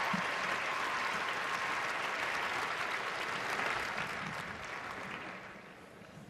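Arena crowd applauding, fading away over the last second or two.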